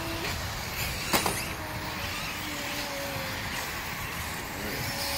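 Electric radio-controlled off-road cars running on a dirt track: a steady hiss with faint, shifting motor whine, and a single sharp knock about a second in.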